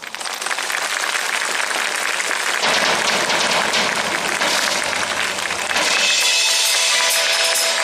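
Crowd applauding. About six seconds in, music with held notes starts up over the clapping.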